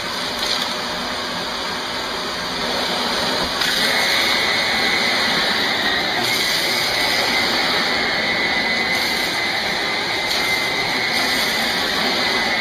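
Shark Navigator NV356E upright vacuum running on carpet with its brush bar switched on, a steady loud whoosh. About four seconds in it grows a little louder and a high steady whine joins it.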